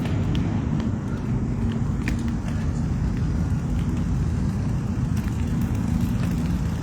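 Steady low rumble of wind on a bicycle-mounted phone microphone and rolling noise while riding, with a few faint clicks.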